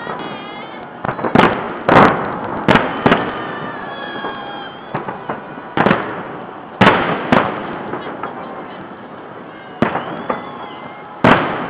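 Aerial firework shells bursting in a salute display: about nine sharp bangs at uneven intervals, each trailing off in echo.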